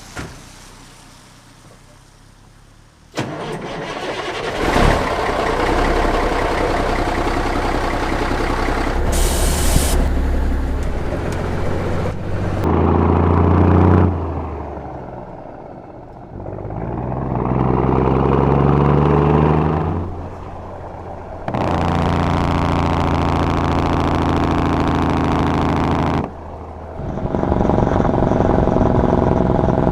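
Cummins 855 diesel of a 1952 Kenworth CD521 through dual 7-inch stacks, heard in a string of short clips with sudden cuts between them. The engine runs loud, with a brief hiss of air near 9 seconds, and between about 12 and 20 seconds its pitch falls and then climbs again, as the Jacobs engine brake works and the truck pulls away.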